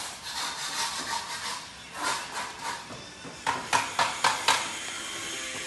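Steel trowel scraping over mortar and floor tiles, then knocking on them: a rough scraping for the first few seconds, then a quick run of five sharp taps a little after halfway.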